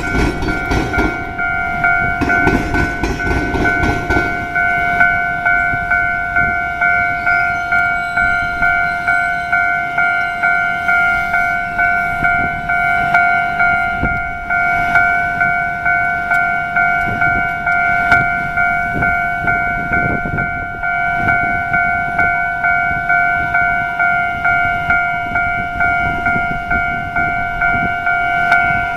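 Japanese railway level-crossing alarm ringing in a steady, even run of repeated electronic dings. A low rumble, typical of a train, is heard under it for the first few seconds.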